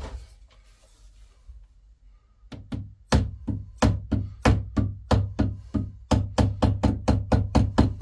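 Plastic-faced hammer tapping a small track pin into a hard 18 mm MDF baseboard to fix a model railway turnout. One knock at the start, then, from about two and a half seconds in, a steady run of short taps, about three to four a second.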